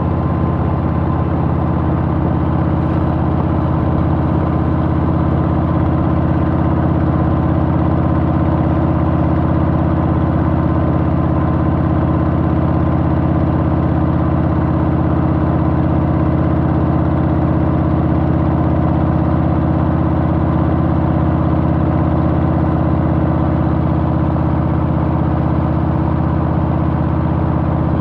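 Harley-Davidson Softail's Milwaukee-Eight V-twin engine running steadily at an even pitch, with no revving or gear changes.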